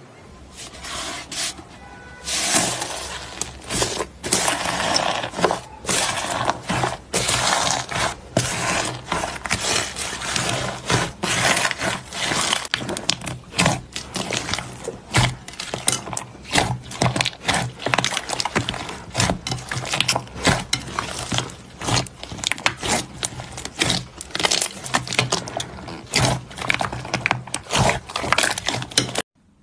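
Slime being squeezed, pressed and poked by hand, with dense crackling, clicking and popping throughout that cuts off abruptly near the end.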